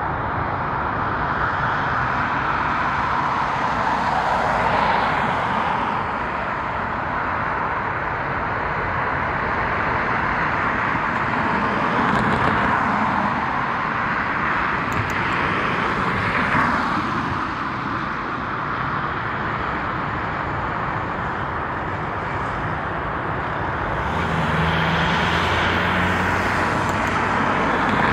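Vehicle noise: a steady rumble with four passes, each swelling and fading over a couple of seconds. A low steady engine hum joins near the end.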